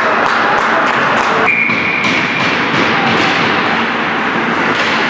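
Ice hockey game sounds in an arena: a steady din with repeated sharp clacks, likely sticks and puck. About a second and a half in, a high steady whistle tone sounds for about a second.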